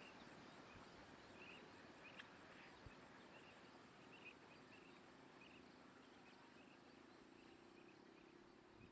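Near silence: faint outdoor ambience with soft, short high chirps repeating about once or twice a second.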